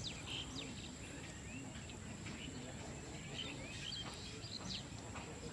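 Scattered short bird chirps over a steady high-pitched insect drone and a faint low background rumble.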